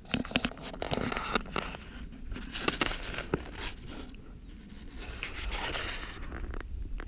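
Close, irregular rustling and scraping with scattered sharp clicks, in two spells: one through the first few seconds and another from about five to six and a half seconds in.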